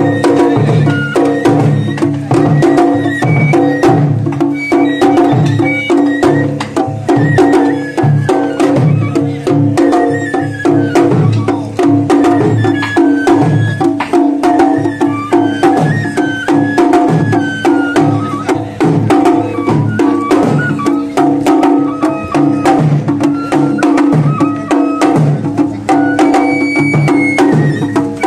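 Japanese festival music (matsuri bayashi) played live on the float: small taiko drums beaten in a dense, steady rhythm under a bamboo transverse flute playing a winding melody, without a break.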